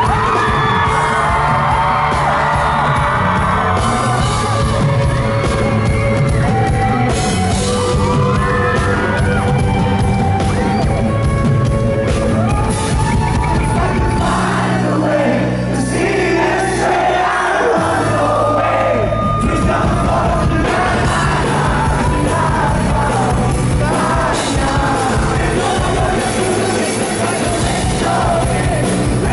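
Live pop-rock band and lead singer performing in a large hall, recorded from among the audience, with audience yelling over the music. About halfway through the drums drop out for a few seconds under held low notes, then the beat comes back in.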